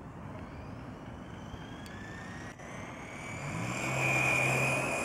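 Brushless-motor Traxxas Rustler RC buggy accelerating toward and past the camera: a high-pitched motor and drivetrain whine that rises steadily in pitch and grows louder, loudest about four seconds in.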